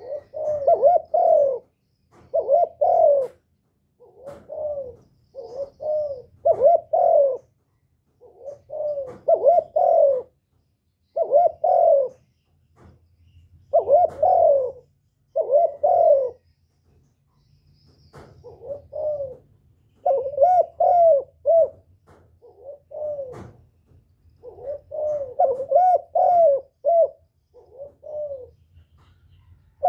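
Spotted dove cooing over and over in short phrases of two or three arching coos, each phrase a second or two long, with brief pauses between phrases.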